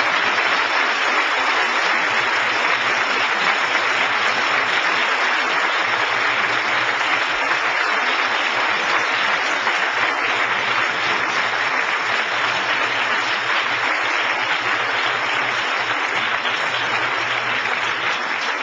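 Large audience applauding, a dense, steady clapping that holds at full strength throughout.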